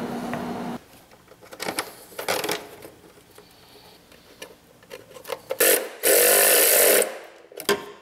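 Pneumatic air tool in the workshop firing in a short blip and then a loud burst of about a second near the end, with scattered clicks and clinks of hand tools. A steady hum stops about a second in.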